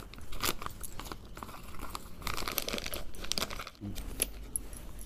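Plastic cooking-oil packet crinkling irregularly as it is handled, opened out and fitted into a glass.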